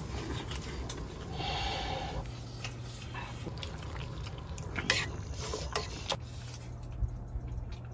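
Metal ladle clinking against a stainless steel pot of fish cakes in broth as they are stirred and scooped, a few sharp clinks in the second half, over a steady low hum.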